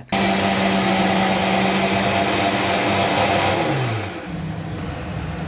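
Electric mixer grinder running at full speed, grinding mint leaves with water into a paste. About four seconds in, its pitch slides down and the sound drops quieter, but the motor keeps running.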